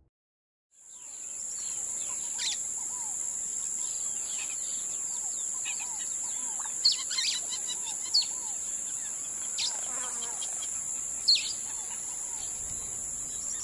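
Birds chirping with short, quick calls, a few louder sharp chirps standing out, over a steady high-pitched insect drone. The sound fades in after a brief silence.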